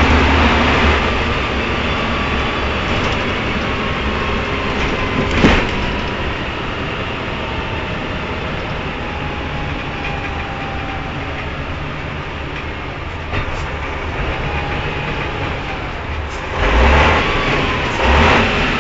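Tatra truck driving along a rough track, heard from inside the cab: steady diesel engine running with cab noise and rattle. A sharp knock comes about five seconds in, and two louder bumps near the end.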